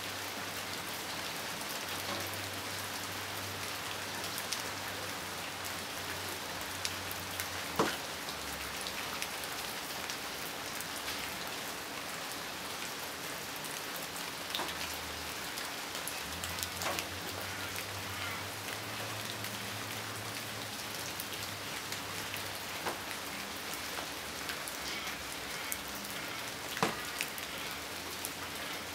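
Steady rain falling, an even hiss, with single drops landing close by now and then; the two sharpest about eight seconds in and near the end. A faint low hum comes and goes underneath.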